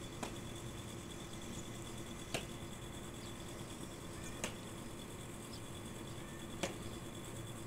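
Quiet ambience with a steady low hum and a faint high whine, broken by four sharp clicks evenly spaced about two seconds apart.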